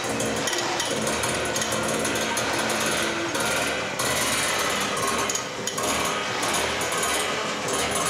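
Harsh amplified noise-music: a dense, continuous rattling buzz from objects and electronics worked live, with a brief dip in level about five and a half seconds in.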